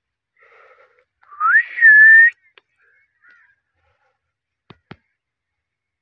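Indian ringneck (rose-ringed) parakeet giving one loud whistle of about a second that rises, dips slightly and then holds level. Two short clicks follow near the end.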